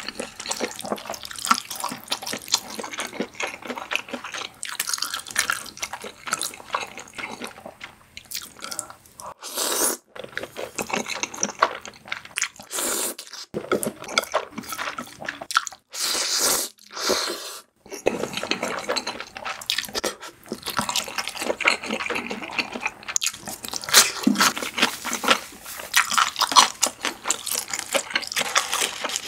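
Close-miked wet chewing and smacking of creamy pasta. Around the middle there are longer slurps as noodles are sucked in.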